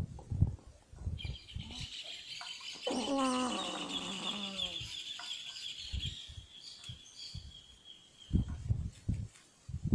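Rooster making snore-like sounds: low rasping breaths, then a long high whistling tone from about a second in, with a drawn-out falling call over it between about three and five seconds. Low rasping breaths return near the end.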